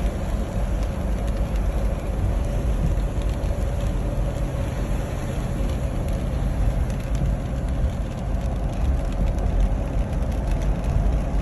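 Car driving, with a steady low rumble of road and engine noise.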